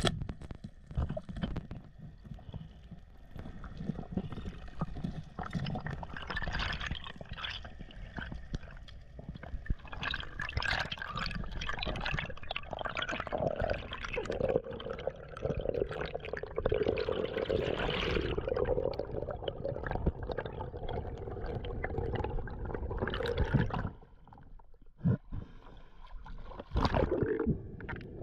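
Water sloshing and gurgling around a waterproof action camera in the sea, full of small clicks and crackles, dropping briefly near the end.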